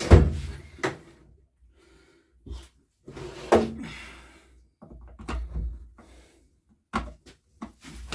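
Workshop handling noise: a handful of separate knocks and clunks, with light rattling between, as tools and parts are picked up and moved on the bench. No engine running.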